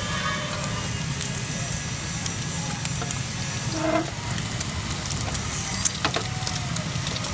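An egg frying in hot oil in an iron kadai, with a steady crackling sizzle, a steel spatula knocking against the pan a few times, and a constant low rumble underneath.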